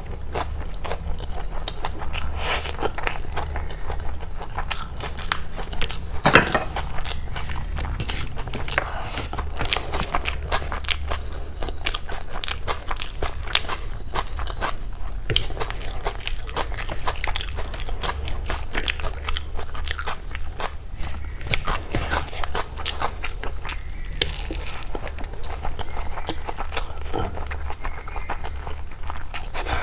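Close-miked eating of chicken biryani and egg curry: steady chewing and biting, with frequent irregular clicks and crunches, the sharpest about six seconds in. A steady low hum runs underneath.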